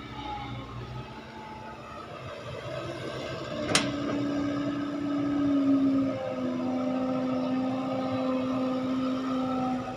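Hydraulic excavator's diesel engine running steadily under load, its drone stepping down slightly in pitch about six seconds in. A single sharp click comes about four seconds in.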